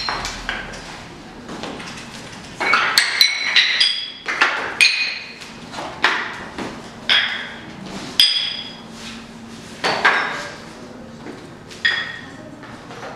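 Loose tuned floor tiles knocked by a dancer's boots, each hit giving a sharp clack followed by a short ringing tone. The tones come at several different pitches, in an irregular run of more than a dozen hits that bunch up in quick clusters.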